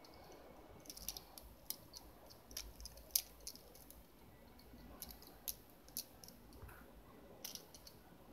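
Small hard-plastic toy parts, a toy race car and curved track sections, clicking and tapping against each other as they are handled: a string of faint, sharp clicks in irregular clusters.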